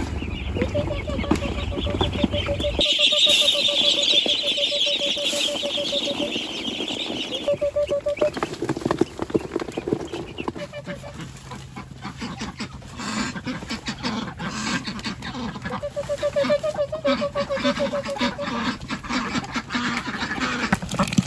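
Muscovy ducks and other poultry in a farm pen calling. A rapid, stuttering low trill repeats through the first several seconds and comes back later, and a high chirring chorus sounds from about three to seven seconds in. Pecking and scuffling clicks follow.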